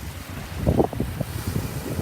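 Waves washing onto a shallow sandy shore under strong wind, with wind buffeting the microphone in uneven low gusts. The strongest gust comes a little under a second in.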